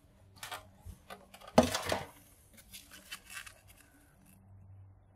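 Cutters snipping through the copper wire coil of a small microwave motor: a string of sharp clicks and snaps, the loudest about one and a half seconds in.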